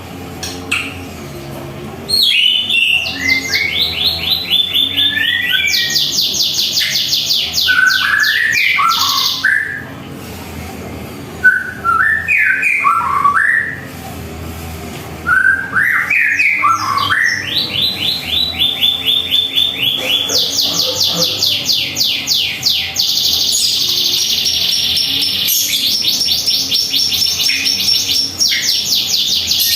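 White-rumped shama (murai batu) singing: whistled phrases that slide up and down, alternating with long runs of fast, repeated high chattering notes. The song begins about two seconds in and pauses briefly twice near the middle.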